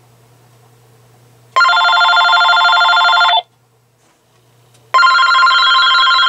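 AT&T EL52419 DECT 6.0 cordless phone's electronic ringer sounding an incoming call: two rings of a repeating multi-tone ringer melody, each about two seconds long, about a second and a half apart.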